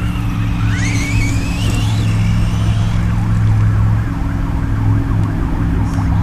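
Electric motor and drivetrain of a Vkar Racing Bison RC truck whining as it drives, the pitch climbing sharply about a second in as it accelerates, then rising and falling with the throttle. A steady low hum sits underneath.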